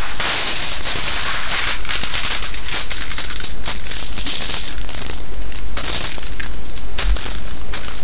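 Aluminium foil crinkling and crackling loudly and continuously as hands fold a sheet into thirds and press it flat.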